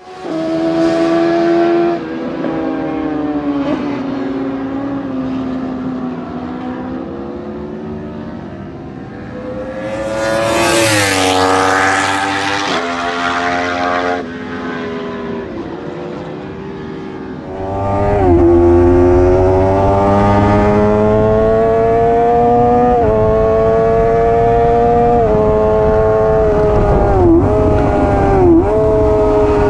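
Sport motorcycles lapping a race circuit, heard from trackside, their engines rising and falling through gear changes, with one passing close about ten seconds in with a falling pitch. A little over halfway through it becomes the onboard sound of a Suzuki GSX-R600's inline-four at high revs under heavy wind noise at full speed, its pitch climbing and dipping at quick gear changes.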